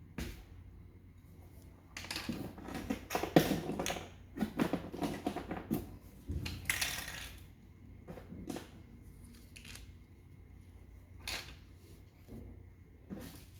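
Packaging and small parts being handled during unboxing: irregular crinkling, rustling and clicking in bursts, busiest in the first half.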